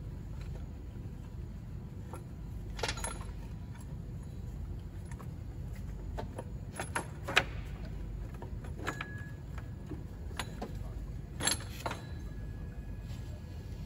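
Scattered metallic clinks and knocks of a socket, bolts and the engine mount being handled as the mount is unbolted and taken out, the sharpest about seven and eleven and a half seconds in. A low steady hum runs underneath.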